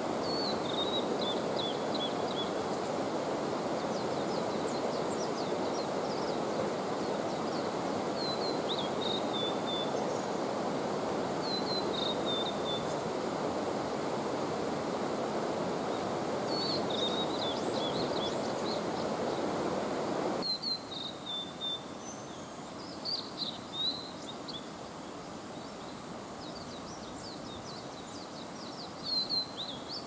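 Male blue-and-white flycatcher singing: short high phrases, each falling a little in pitch, repeated every few seconds. A steady rushing noise lies underneath and drops away suddenly about two-thirds of the way through.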